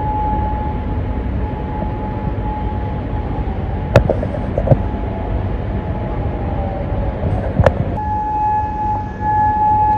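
Civil defence air raid siren sounding a steady, high wail over a low rumble, warning of an incoming drone and missile attack. About four seconds in there is a sharp click and the wail weakens and slides down in pitch, then after a second click near the eight-second mark it is back at full pitch.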